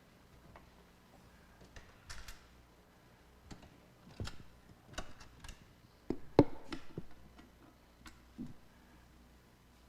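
Scattered knocks and clicks as a red oak tool chest is handled and shifted into place, the loudest cluster of knocks about six seconds in.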